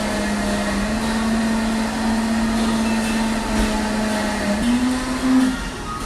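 A woman's long, held "mmm" hum of enjoyment as she tastes a dessert, staying on one pitch and then rising briefly near the end, over a steady background hum.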